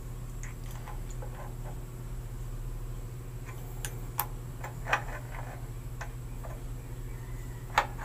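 Scattered sharp metal clicks and taps of an adjustable wrench working on a brass shower valve fitting, the loudest near the end, over a steady low hum.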